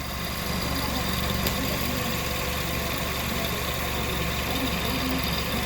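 2006 Kia Sportage's 2.0-litre four-cylinder engine idling steadily, getting slightly louder about half a second in.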